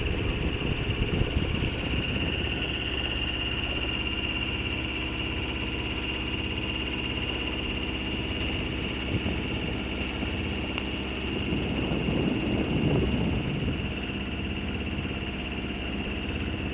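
Sailboat's engine running steadily while motoring, with a steady high whine alongside and a low rumble that swells briefly in the second half.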